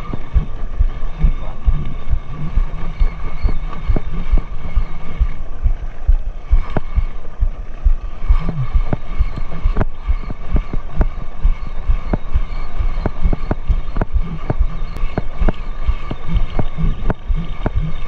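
Low knocking thumps from a small wooden fishing boat rocking on the sea, under a steady faint whine. From about six seconds in come regular sharp ticks, roughly two a second.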